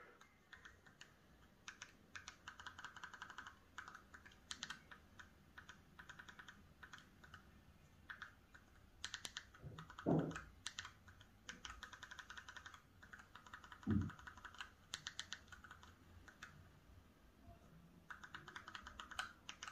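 TV remote control buttons clicking in quick runs of repeated presses while scrolling. Two dull thumps, about ten and fourteen seconds in, are the loudest sounds.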